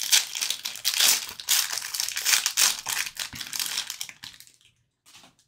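Foil wrapper of an Upper Deck Stature hockey card pack crinkling as it is opened by hand. The crinkling dies away about four seconds in as the cards are slid out, leaving a few faint clicks.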